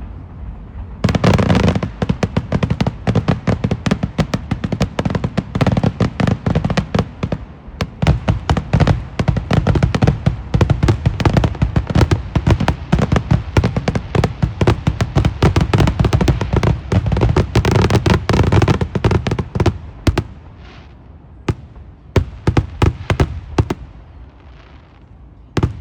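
Fireworks finale: a dense barrage of rapid bangs, thinning to scattered single bursts for the last several seconds.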